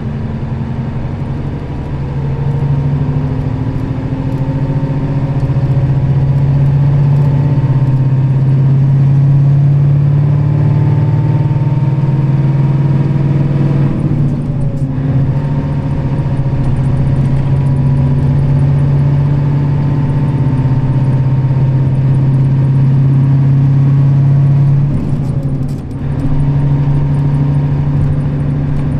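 Nissan Diesel KL-RA552RBN city bus's diesel engine pulling under load, its pitch rising steadily, with a short break about halfway through and another near the end as it shifts gear.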